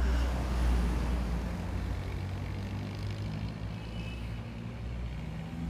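A coach bus drives past, its engine rumble loudest in the first second or so and then easing into steady street traffic noise.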